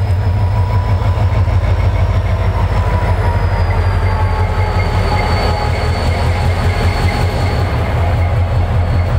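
GMU-30 diesel locomotive running past at close range: a steady, pulsing low engine throb, with a thin high whine that drifts slowly down in pitch.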